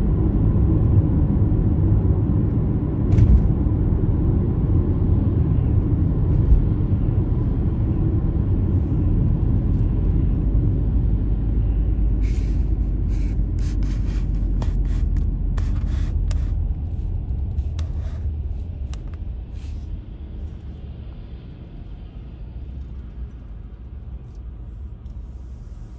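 Car driving on a wet road: a steady low rumble of engine and tyre noise that dies down between about 16 and 20 seconds in as the car slows and stops at a red light. A scattering of faint clicks comes in the middle.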